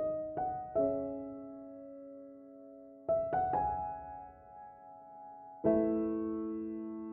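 Soft solo piano background music: slow, sparse notes and chords left to ring, with a held chord about two-thirds of the way through.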